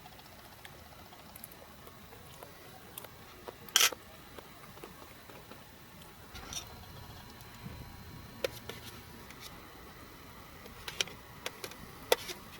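Scattered sharp clicks and knocks over a faint steady background, the loudest a short cluster nearly four seconds in and another just after twelve seconds.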